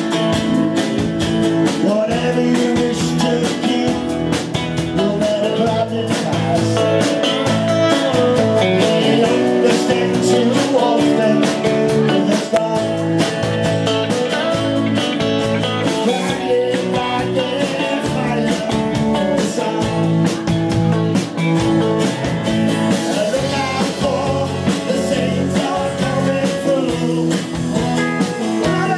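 Live band playing: acoustic guitar, electric guitar, bass and drums, with sung vocals.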